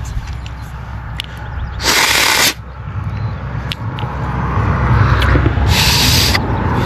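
Two short hissing bursts of pressurised spray, each about half a second, blown through a clogged lawnmower carburetor jet to clear it.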